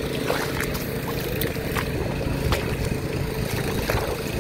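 Mini tiller's small engine running at a steady pace while it works the paddy field, with a few sharp clicks.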